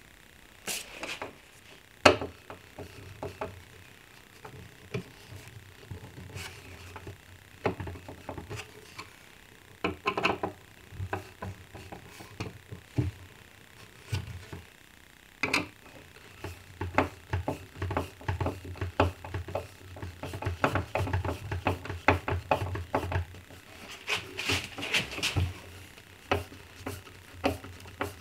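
Scattered light knocks, taps and clicks of hand work on a wooden cabinet door, with denser runs of clicking near the end as a hand screwdriver drives the screws of a door handle.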